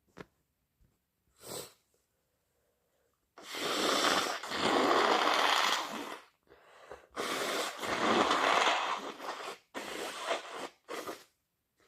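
A person blowing their nose hard: two long, forceful blows of two to three seconds each, followed by two shorter blows, with a short sniff before them.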